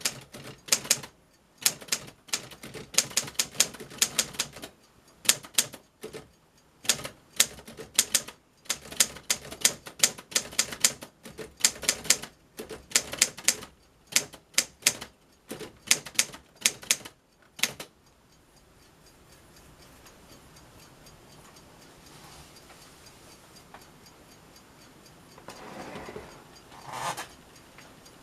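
1946 Underwood standard manual typewriter being typed on: typebars striking in quick runs of clicks with short pauses. The typing stops about two-thirds of the way through, leaving a low hiss with a brief soft sound near the end.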